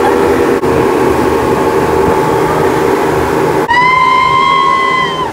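Passenger boat's engine running steadily with rushing water and wind. About three and a half seconds in, a sudden cut to a high held 'aah' cry from the group that lasts over a second.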